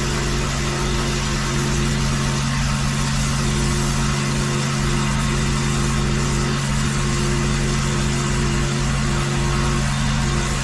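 Petrol pressure washer engine running steadily, with a constant hiss of high-pressure water spraying on concrete.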